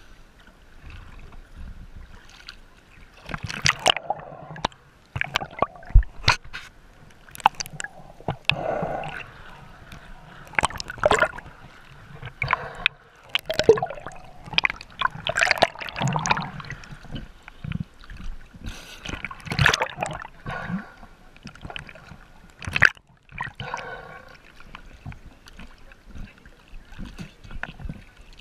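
Water sloshing, gurgling and splashing right against a waterproof camera held at the surface by a swimmer, the camera dipping under and back out, with irregular sharp splashes.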